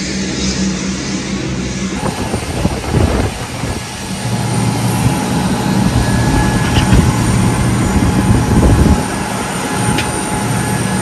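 A fire engine's diesel hums at idle, then gives way about two seconds in to the steady roar of aircraft engines on a flight line, with a faint high whine. There is a single sharp metallic click near the end.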